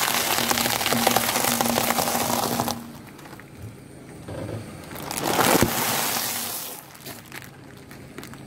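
A car tyre rolling over and crushing plastic-wrapped packs of crunchy food: dense crackling and crunching of plastic wrap and dry food breaking, in two bursts, the second one about four to five seconds in.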